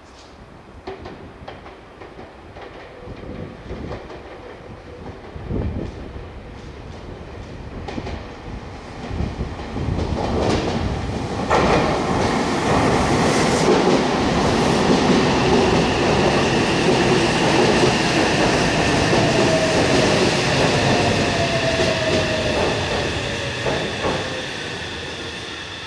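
Out-of-service electric multiple-unit train approaching over the points and running in along the platform: faint scattered wheel clicks at first, building about ten seconds in to a loud rumble of wheels on rail with a whine that falls in pitch, then fading near the end.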